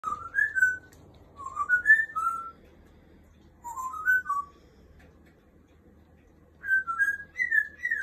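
Pet parrot whistling: four short phrases of quick rising and falling notes with pauses between them, the last phrase sliding down near the end.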